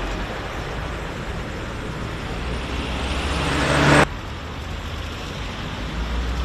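Road traffic running past, a steady noise with a low engine hum. A vehicle grows louder from about three seconds in and cuts off suddenly about a second later.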